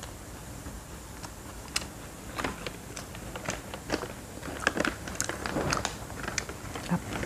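A plastic snack packet crinkling and crisp seaweed snack sheets crackling as they are pulled out of the bag by hand. It comes as an irregular run of sharp crackles starting a couple of seconds in.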